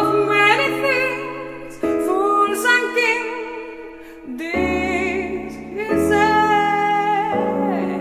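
Slow ballad music: sustained chords change every second or two under a melody sung with vibrato.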